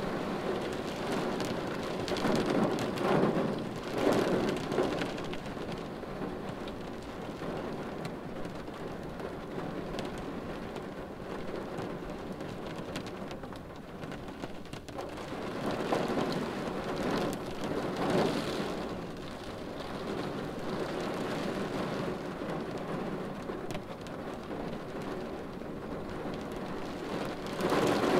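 Steady rain falling on a car windshield, heard from inside the car, swelling louder a few times.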